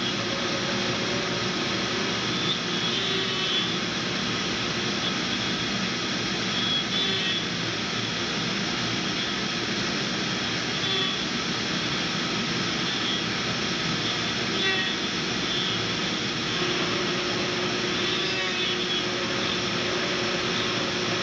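Kress router spindle on a desktop CNC mill running steadily, its endmill cutting 60 mm × 20 mm aluminium extrusion: an even machining noise with a steady whine over it.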